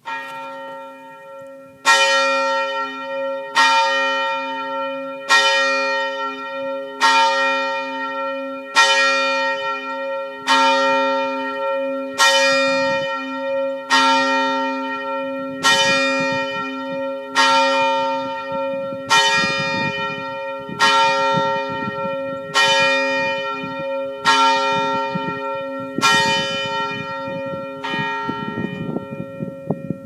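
A single church bell tolling at a steady pace, about one stroke every second and three quarters, its hum ringing on between strokes. The strokes stop a few seconds before the end and the bell keeps ringing as it fades.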